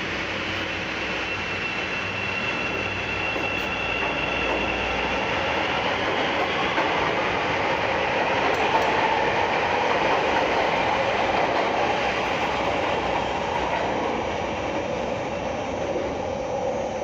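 Chicago 'L' rapid-transit train running on the rails, with a thin high whine in the first few seconds. The noise grows louder towards the middle and eases off near the end.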